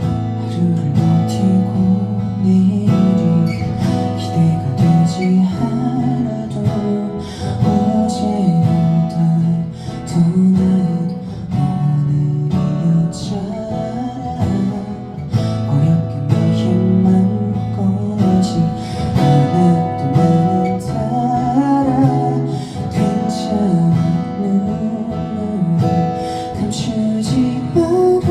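Instrumental break in a band song: acoustic guitar strumming, with picked melody notes over it and no lyrics sung.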